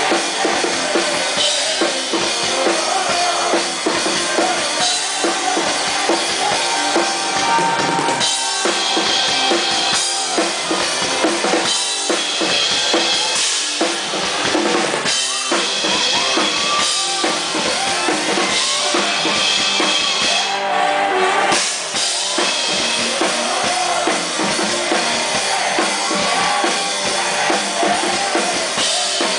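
Live rock band playing loudly, with the drum kit to the fore over electric guitar and bass.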